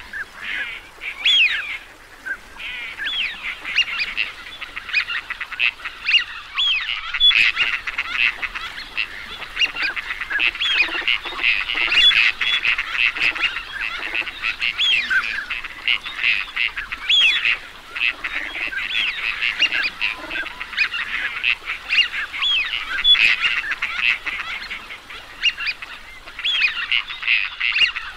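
A flock of teal ducks calling: a dense, continuous chorus of many overlapping short, high-pitched calls, with brief lulls about two seconds in and again midway.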